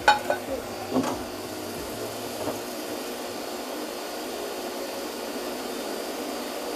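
Countertop jug blender running steadily at speed, blending salmorejo for a long time so the oil, bread and tomato emulsify into a dense cream. A couple of light knocks come at the start and about a second in.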